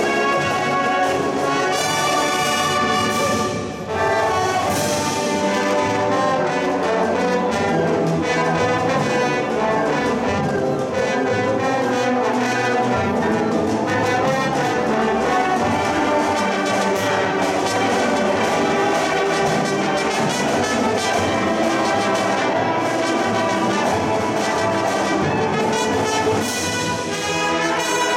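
High school marching band playing a brass-led passage of its competition show, with trumpets, trombones and horns over percussion. The music breaks off briefly about four seconds in, then carries on.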